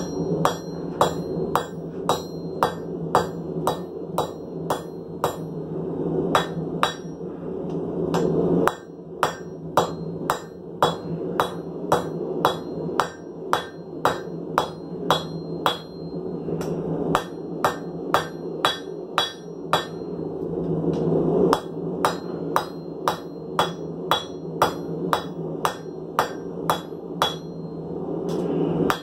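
Hand hammer striking a red-hot steel file on an anvil at about three blows a second, with brief pauses. Each blow is a sharp metallic strike with a short ring, as the file is drawn out into a kiridashi blade.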